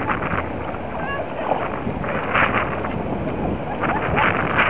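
Seawater sloshing and splashing around a kayak in small surf, with wind on the microphone. The splashing surges about halfway in and again near the end.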